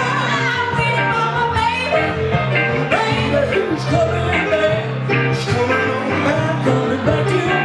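Live blues-rock band: a woman singing over electric keyboard and electric guitar, with a steady groove.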